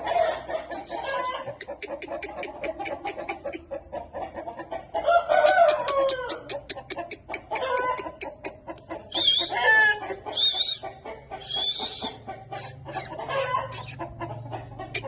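Aseel chickens clucking and calling, with a falling call about five seconds in and a run of high chirps around the middle, over many short sharp taps.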